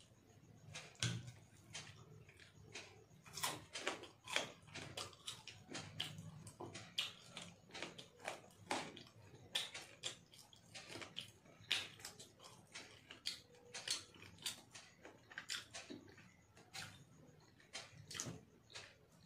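Eating by hand: an irregular run of short, wet clicks and smacks, several a second, from chewing and from fingers picking rice off a glass plate.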